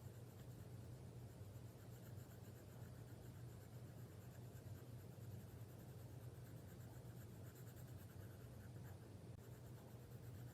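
Faint, short, repeated scratches of a drawing tool stroking across paper, over a steady low hum.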